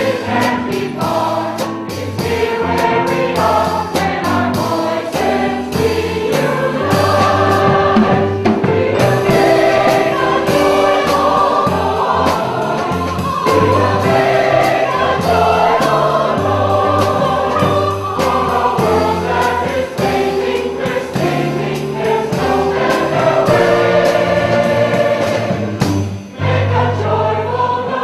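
Mixed choir of men and women singing an upbeat song over accompaniment with a steady beat, with a short break in the sound near the end.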